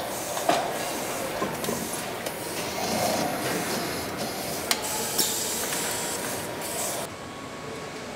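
Car assembly-line machinery: a steady mechanical hiss with a few sharp clicks and knocks scattered through it. About a second before the end the hiss drops away, leaving a lower, duller hum.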